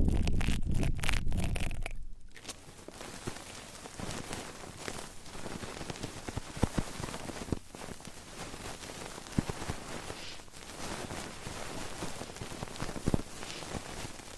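ASMR trigger sounds right against a sensitive microphone. A low rumble fills the first two seconds, then a dense crackling and scratching with scattered sharp clicks.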